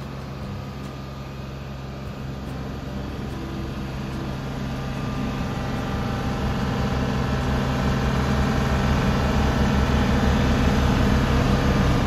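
TYM compact tractor's diesel engine running steadily with its rear snowblower attachment throwing snow, growing gradually louder as the tractor comes closer.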